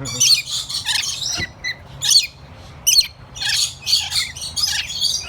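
Parrots squawking, a quick string of short, high-pitched calls following one another without a break.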